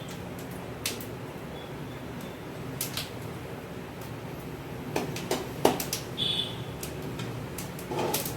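Whole spices frying in hot sesame oil, giving scattered sharp pops and clicks that bunch up about two-thirds of the way through, over a steady low hum.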